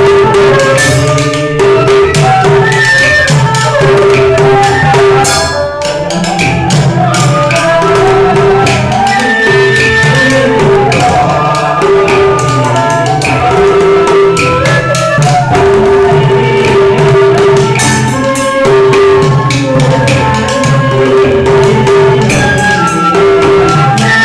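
A man singing a chèo folk song into a microphone over live accompaniment of bamboo flute and percussion, with frequent percussive strokes keeping the rhythm.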